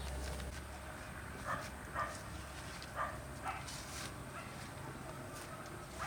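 A small dog or puppy yipping: four short, high yelps in two pairs, each pair about half a second apart.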